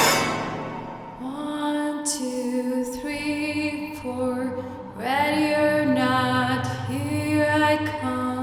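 Slow, soft music: a melody of long held notes, each sliding into place, in a singing or voice-like tone. A loud hiss fades away in the first second.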